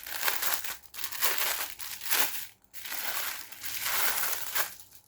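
Packaging crinkling and crumpling as it is handled and opened, in several bursts with short pauses, dying away near the end.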